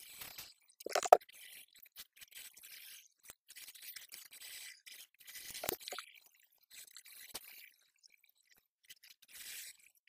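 Fast-forwarded room sound: brief scratchy rustles and scattered clicks, with a louder knock about a second in and another just before six seconds.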